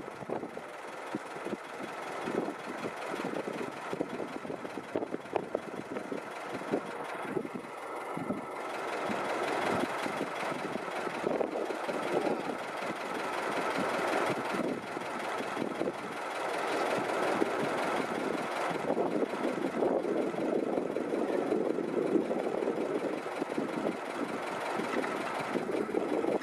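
Bucyrus-Erie 15-B cable excavator running, its machinery giving a dense, irregular knocking and clatter that grows louder after about nine seconds.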